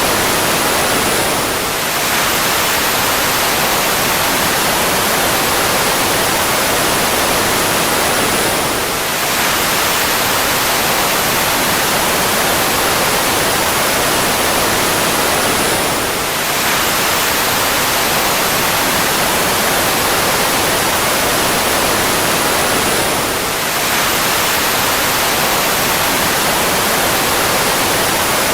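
Fighter jet engine running steadily as an even, hissing rush of noise, with a faint high whine that slowly falls in pitch. A recording of about seven seconds loops over and over, dipping briefly in level at each restart.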